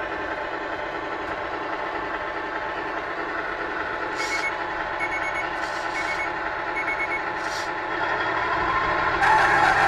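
Simulated truck engine idling, played by a GT Power Light and Sound Kit Pro through the RC truck's small speaker, with a reversing beeper sounding four times in the middle along with a few short hisses. The sound gets louder near the end.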